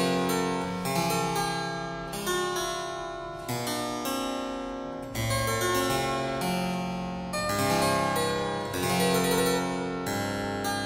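Background music: a keyboard piece, its notes struck in phrases and left to fade.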